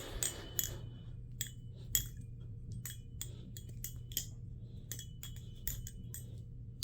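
Balisong (butterfly knife) being flipped: a string of irregular metallic clicks and clacks as the handles swing around their pivots and knock together.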